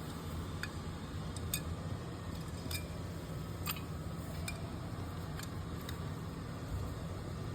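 Scattered light metallic clicks and taps, irregular and a second or so apart, as small carburetor parts and tools are handled, over a steady low hum.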